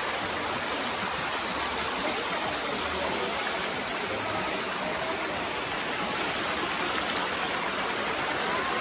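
Waterfall pouring down a rock face into its pool: a steady, even rush of falling water.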